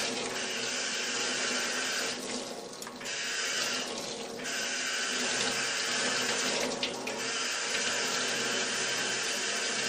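Water running from a gooseneck faucet and splashing over hands and forearms into a stainless steel scrub sink during a rinse. The splashing steadies and dips briefly about three times.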